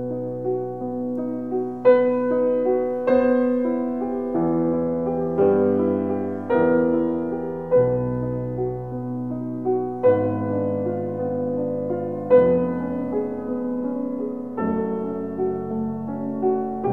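Slow, gentle piano music, a new note or chord struck every second or two and left ringing.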